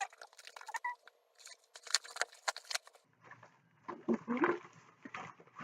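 Crinkling and rustling of a small mailing package being handled and opened by hand, in a quick run of irregular crackles.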